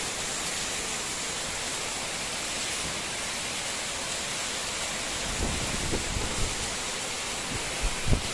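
Heavy cyclonic rain pouring steadily onto concrete, an even hiss, with a couple of brief low bumps near the end.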